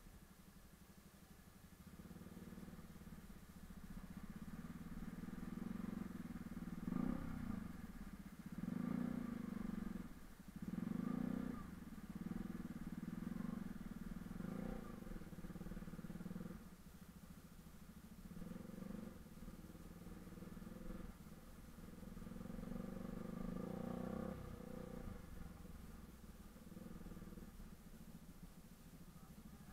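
Bajaj Pulsar RS200's single-cylinder engine running at low speed over a rocky water crossing and rough track, the throttle opened in several surges between about seven and twelve seconds in and again near twenty-four seconds, otherwise pulling steadily.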